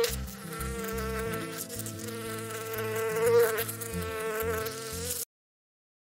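Honeybees buzzing: a steady, wavering drone that cuts off abruptly about five seconds in.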